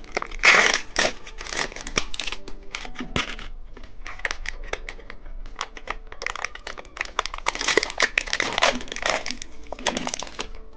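Candy wrapper crinkling and tearing as it is handled and opened, in irregular bursts that are loudest about half a second in and again near the end.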